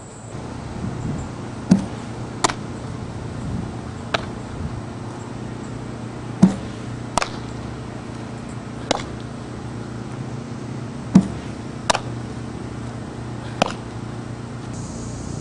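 Softball fielding practice: sharp knocks of a bat hitting ground balls and of the ball popping into leather gloves, about ten in all. They come every few seconds, often in pairs about three-quarters of a second apart.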